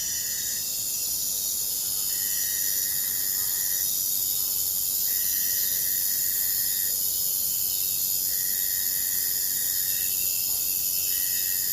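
Forest or jungle ambience: a steady, dense chorus of high-pitched insects. Over it a single held call sounds about four times, each lasting around two seconds with short gaps between.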